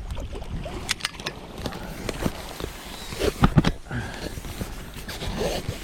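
Water sloshing and splashing as a hooked carp is played close in on a pole. There are a few sharp clicks about a second in and louder splash-like knocks around the middle.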